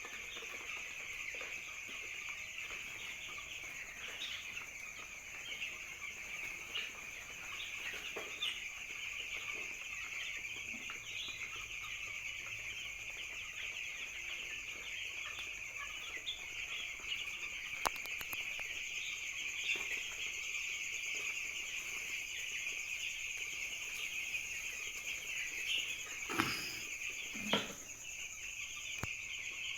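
A flock of chicks, about eight days old, peeping continuously in a dense chorus of high chirps. Two short knocks come near the end.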